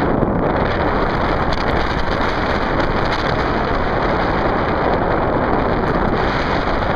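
Wind blowing across the microphone: a steady, loud rush of noise with no breaks.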